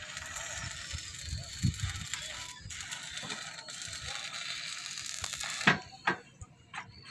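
Stick-welding arc crackling and hissing steadily as a steel formwork support is welded. The arc breaks off briefly twice and stops with a sharp click about two-thirds of the way through. A few light clicks and knocks follow.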